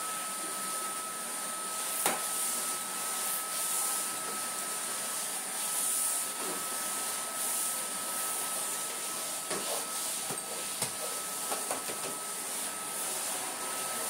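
Numatic cordless tub vacuum cleaner running steadily with a constant whine and hiss while its floor head is pushed over laminate floor picking up debris, with scattered sharp clicks.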